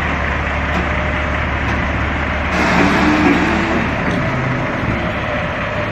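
Forklift engine running steadily as it moves a heavy machine tool, briefly louder about two and a half seconds in.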